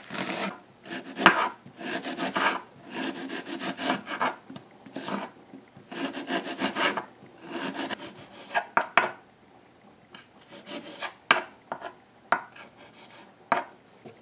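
Kitchen knife chopping scallions on a wooden cutting board, with quick runs of blade strokes knocking on the board. About halfway through, this gives way to a few separate knocks as a small hot pepper is cut.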